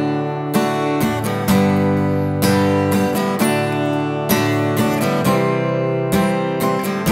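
Acoustic guitar strummed in a slow ballad pattern: a long downstroke, a shorter downstroke, then two quick down-up strokes, repeating. The chords ring between strokes, moving from D major to C major near the end.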